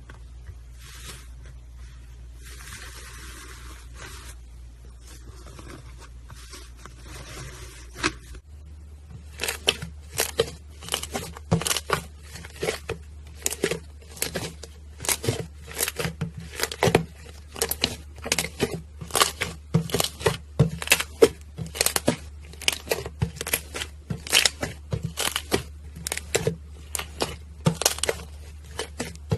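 Slime being squeezed and worked by hand, soft and sticky at first, then from about eight seconds in a dense run of sharp pops and crackles, several a second.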